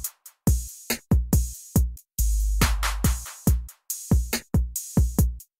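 Outro music with a beat of sharp drum hits and deep kick-drum thumps, and a long held deep bass note about two seconds in.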